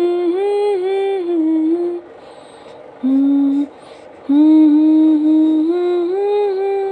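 A woman humming a lullaby melody without words, in sung phrases broken by two short pauses near the middle.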